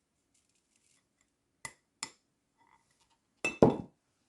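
Kitchenware knocking against a mixing bowl: two light taps about a second and a half in, then two heavier knocks with a short ring near the end, as the last of the dry flour mixture is knocked into the batter.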